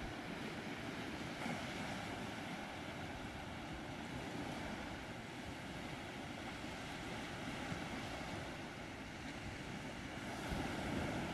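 Small Black Sea waves breaking and washing up onto a sandy beach: a steady surf wash, swelling a little louder near the end as a bigger wave comes in.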